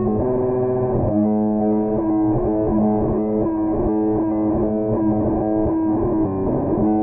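Instrumental music led by a guitar played through effects and distortion, holding long notes.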